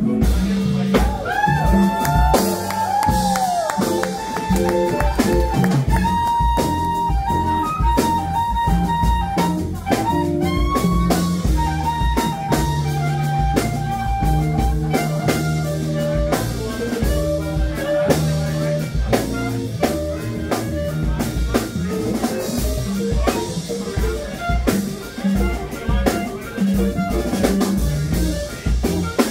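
Live jazz quartet: a clarinet plays the melody, with sliding notes near the start, over upright bass, electric guitar and drum kit.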